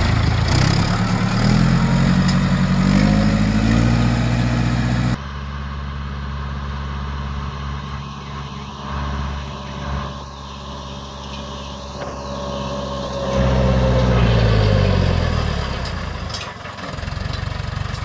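Landini tractor's diesel engine running, its revs climbing over the first few seconds as it drives the hydraulic net winder. About five seconds in it turns suddenly quieter and farther off, then comes back loud a little past halfway, its revs falling toward the end.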